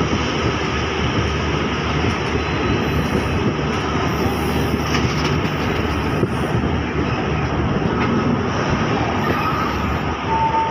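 Train running along the line, heard from inside the coach: a steady rumble and rattle of wheels on the rails.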